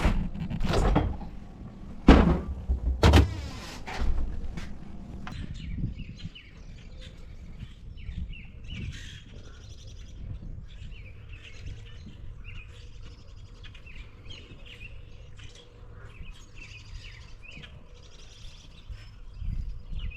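A few loud knocks and thumps in the first four seconds, then small birds chirping on and off over a low steady background.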